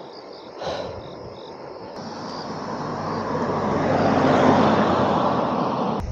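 A passing motor vehicle's rushing noise, swelling steadily over a few seconds to its loudest about four and a half seconds in, then easing slightly before it cuts off suddenly near the end. Faint insect chirping is heard in the first second or so.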